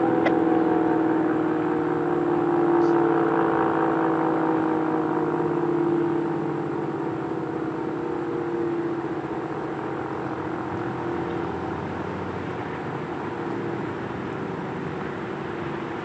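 ACA P-50 outdoor warning siren sounding the steady-tone Alert signal: one held pitch with gentle swells in loudness, slowly getting quieter.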